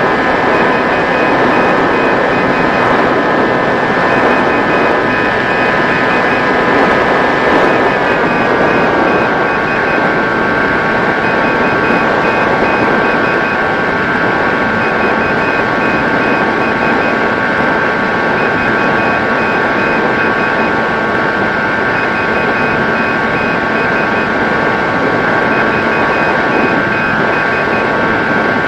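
Electric motor and propeller of a 90 cm Mini Drak FPV model plane in flight: a steady whine over rushing air, dropping a little in pitch about eight seconds in as the throttle eases. A faint high beeping comes and goes.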